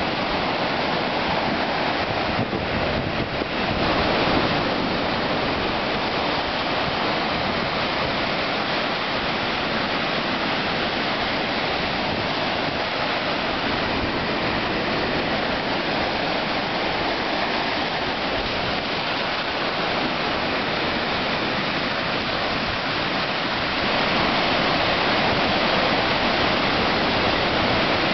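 Ocean surf breaking and washing up over the sand, a steady rushing hiss that grows a little louder near the end.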